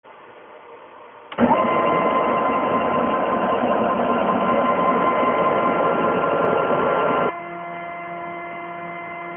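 Stepper-driven axes of a home-built CNC mill with ballscrews, making their first moves. A loud whirring motion starts suddenly about a second and a half in, with a steady whine that rises briefly at first. It stops abruptly about seven seconds in, leaving a quieter steady motor hum.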